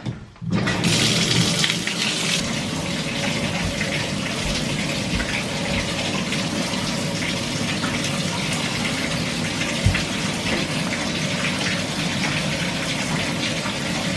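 Water turned on at a single-handle bathtub-shower valve about half a second in, then running steadily into the tub. A single short knock comes near ten seconds in.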